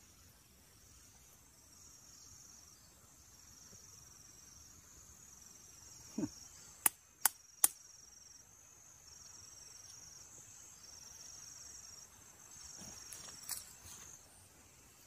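Insects chirring in a high, thin drone that comes and goes in stretches, with three sharp clicks in quick succession about halfway through.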